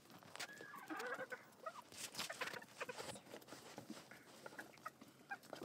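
Chickens clucking quietly, with a short wavering call about half a second in, and scattered small clicks and rustles after it.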